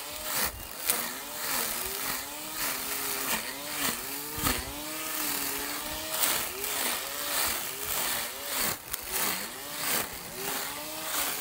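Handheld grass trimmer running as it cuts grass. Its motor whine dips and recovers in pitch again and again as the head bites into the grass, with scattered sharp clicks from the cutting head.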